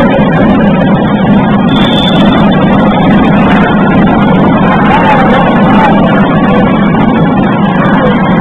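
Loud, steady crowd din echoing in a basketball hall during play, with many short, sharp clicks over it.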